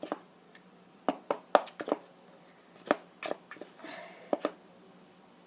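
Spoon scooping cornstarch and knocking it into a balloon stretched over a cut plastic bottle: a string of sharp irregular clicks and crunchy scrapes.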